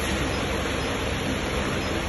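Steady, even rushing noise of a diode laser machine's cooling system running, with no clicks or beeps standing out.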